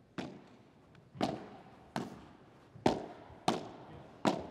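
Padel rally: the ball struck back and forth by rackets and bouncing on the court, six sharp pops each with a brief ringing tail, coming roughly once a second.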